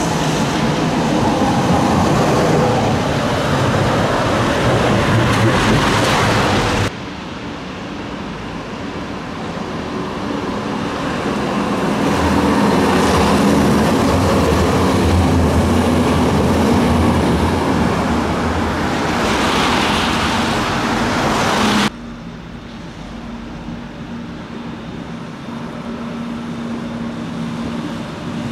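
Trams and road traffic on a wet street. A tram approaches amid the steady hiss of traffic. After a cut, a low-floor tram passes close by with a low rumble that swells and fades. After another cut, a more distant tram runs with a quieter, steady hum.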